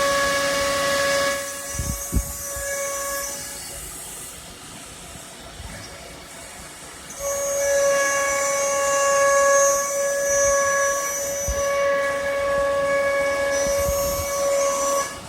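CNC router spindle running with a steady high whine and a hiss of cutting noise. The whine eases off after the first second and swells again about seven seconds in. A couple of low thumps come about two seconds in.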